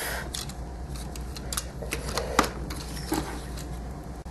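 Scattered light clicks and taps of a plastic Transformers action figure being handled and its parts moved, over a steady low hum.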